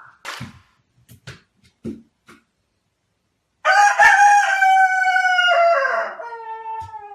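A rooster crows once, starting about three and a half seconds in: one long call of about three seconds, held in steps and falling away at the end. A few faint knocks come before it.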